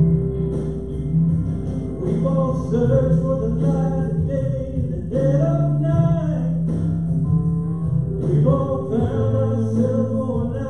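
A live worship band playing a gospel song: singing over guitar and a steady bass line.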